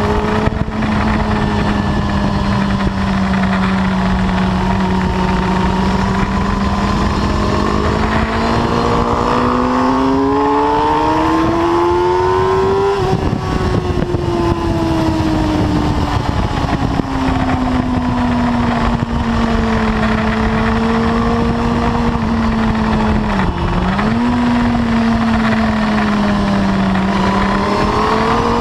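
Suzuki sportbike engine heard from on the bike under way: it holds a steady pitch, rises through the revs to a peak about 13 seconds in, then falls off slowly. The pitch dips sharply for a moment about 23 seconds in and climbs again near the end, with a steady rush of wind noise throughout.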